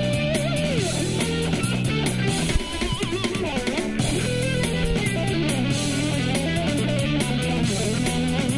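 Electric ukulele playing a lead melody of picked notes with bends and slides, over a backing track of drums and a repeating low bass line.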